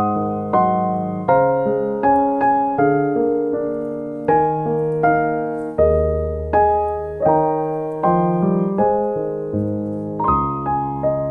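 Background music: a slow solo piano piece, single notes and chords struck one after another, each fading before the next.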